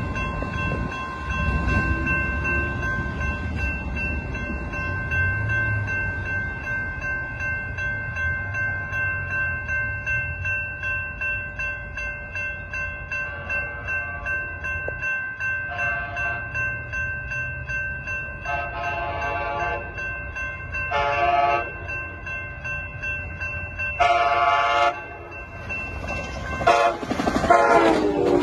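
Grade-crossing bell ringing steadily while an Amtrak Capitol Corridor train approaches at about 70 to 80 mph, its cab car horn sounding a series of blasts that grow louder. The last blast drops in pitch as the cab car passes, with the rush of the passing bi-level cars.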